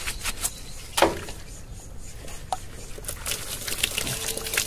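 Gloved hands rubbing and scrubbing a bull's wet, injured hoof while cleaning the lesion, with one sharp knock about a second in. Near the end, liquid squeezed from a plastic bottle spatters onto the hoof.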